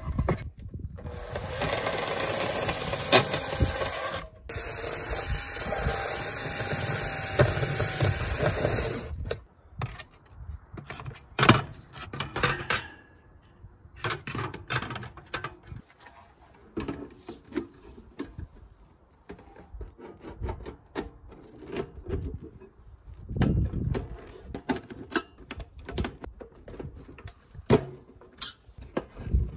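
Makita cordless drill running on a stainless steel stove body, steady for about eight seconds with a brief stop partway through. After it stops come scattered clinks and knocks of stainless steel stove parts, such as the grate and top section, being handled and fitted together, with one sharper knock a couple of seconds after the drill stops.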